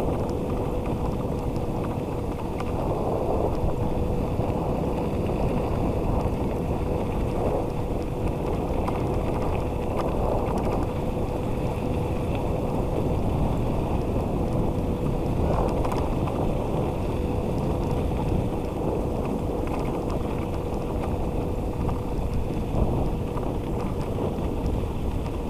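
Dog scooter's wheels rolling steadily over wet ground, with wind rushing over the microphone. A thin steady whine runs through much of it.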